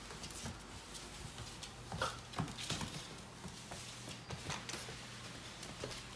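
Pit bull puppy's claws clicking and scrabbling on a hard plank floor in quick irregular bursts as it dashes around a flat mop, with a few sharper clicks about two to three seconds in.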